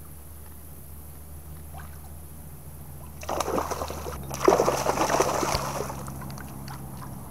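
Hooked bowfin thrashing at the surface beside a kayak, splashing water in two bursts, the first about three seconds in and a louder one about a second later.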